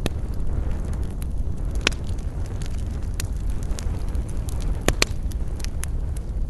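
Wood campfire crackling, with irregular sharp pops, a few louder snaps among them, over a steady low rumble.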